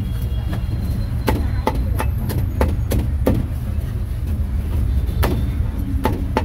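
Cleaver chopping grilled meat on a cutting board: about a dozen sharp knocks in uneven runs, a pause of a second or so in the middle, over a steady low rumble.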